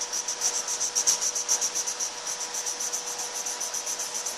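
Felt-tip magic marker scribbled rapidly back and forth on a colouring-book page: a rhythmic scratchy rubbing at about eight strokes a second, easing a little after about two seconds in.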